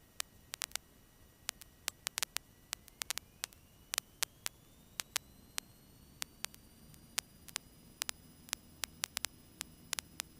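Faint hiss broken by many sharp, irregular clicks, with a thin faint whine that starts rising in pitch about three seconds in: electrical noise on a cockpit intercom audio feed between transmissions.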